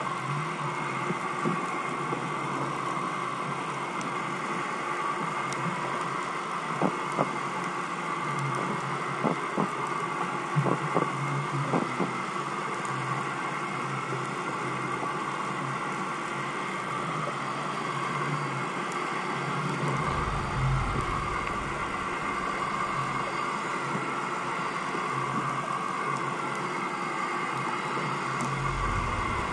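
Steady engine hum of a boat, carried through the water and heard underwater through a camera housing. A cluster of sharp clicks comes about a third of the way in, and low rumbles come around two-thirds of the way in and near the end.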